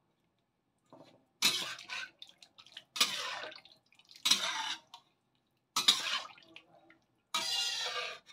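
Metal ladle stirring chunks of beef through thin rendang sauce in a large metal wok: five strokes of metal scraping the pan through the wet sauce, roughly a second and a half apart.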